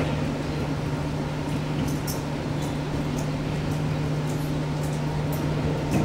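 Gymnasium room sound: a steady low hum, like ventilation, with scattered faint sharp taps of volleyballs being passed and set.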